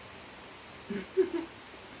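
A person's short, low throat sounds, two or three quick ones about a second in, the middle one loudest.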